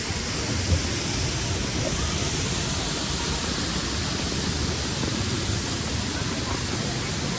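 Heavy waterfall, a steady rush of falling water, heard through a waterproof camera case.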